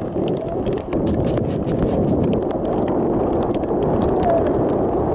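Strong wind buffeting the microphone in a steady, loud rumble, with a rapid scatter of small sharp clicks and taps through it.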